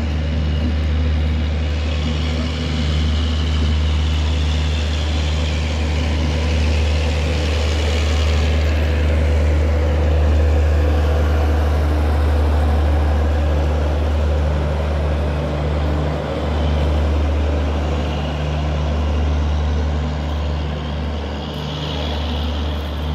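A passenger train of LHB coaches rolling past at low speed as it leaves the station: steady low rumble with wheel and rail noise, its diesel generator power car going by about halfway through.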